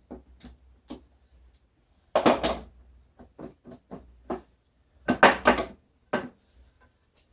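Metal parts of a miter saw handled and test-fitted: knocks and clatter in two short bursts, about two and five seconds in, with lighter clicks between.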